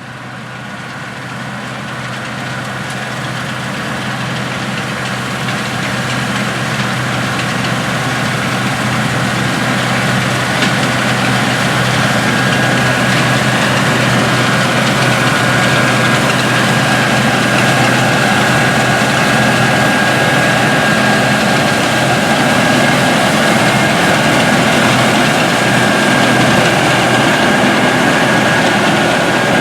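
Heavy diesel harvesting machinery running steadily: a deep engine drone with a thin, steady whine above it. It grows louder over the first ten seconds or so, then holds level.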